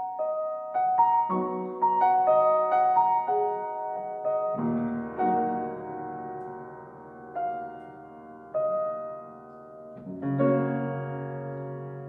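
Solo piano music: a quick run of single notes over the first four seconds or so, then slower, held chords struck every second or two.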